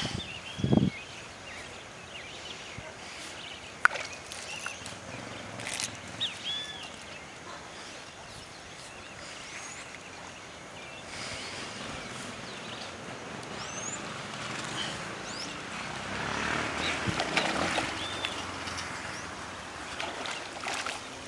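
Birds calling with short, scattered whistled notes over outdoor background noise. A louder stretch of splashing comes about three-quarters of the way through, as a hooked fish thrashes at the water's surface.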